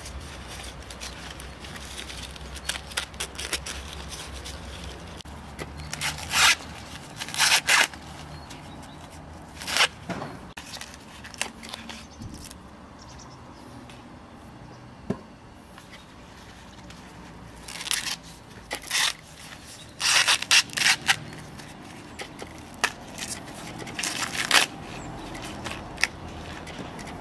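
Green husks being torn and stripped off fresh ears of corn by hand: a series of short crackling rips and rustles, several seconds apart.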